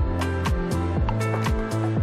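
Background music with a steady drum beat over a bass line and held chords.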